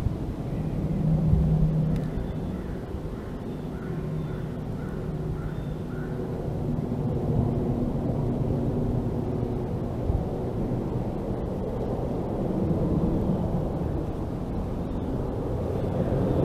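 Low engine drone from distant motor traffic, a steady hum that swells and eases a little in loudness.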